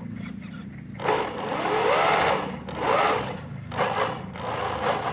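An RC model boat's small electric drive running with a steady low hum. From about a second in, four louder rising-and-falling bursts come over it.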